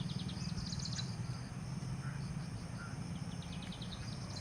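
Insects chirping in short, rapid trains of high pulses, a few times, over a steady low hum.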